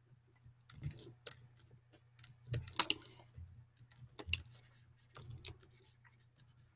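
Faint, irregular clicks and taps from digital painting at a computer, typical of keyboard shortcuts and a stylus working on a drawing tablet, with one louder burst about three seconds in.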